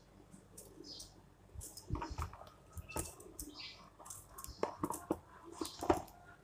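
Vegetables handled in a plastic bowl: cucumbers knocking and rubbing against the bowl and each other, a run of light clicks and knocks from about two seconds in.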